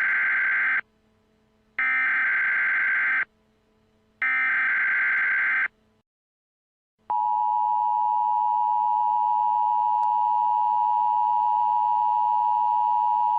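Emergency Alert System header tones: three short, harsh digital data bursts about a second apart, then, about 7 seconds in, the steady attention signal tone, which starts a new emergency alert.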